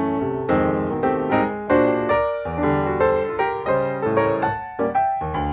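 Background piano music: notes struck one after another, several a second, each fading away.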